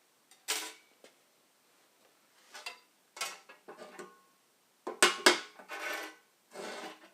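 Metal tools and parts being handled during copper-line brazing work: a series of separate clinks and scrapes, a few with a short metallic ring, loudest about five seconds in.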